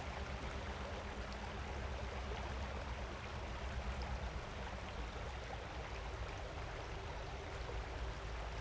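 Steady rushing-water ambience, like a flowing stream, with a deep low rumble underneath.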